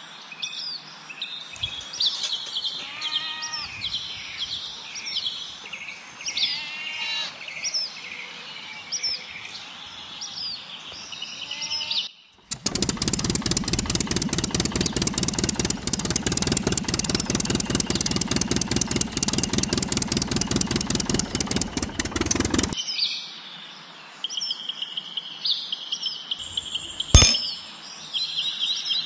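Birds chirping at first, then for about ten seconds in the middle a tractor engine running with rapid, even pulses, cutting off sharply; the chirping returns, with one sharp click near the end.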